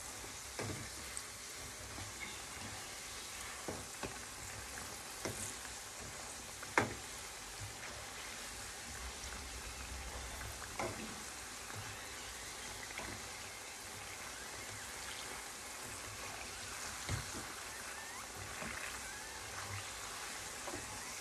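Glutinous rice flour fritters (badoya) deep-frying in a pan of hot oil: a steady sizzle with scattered sharp clicks, the loudest about seven seconds in.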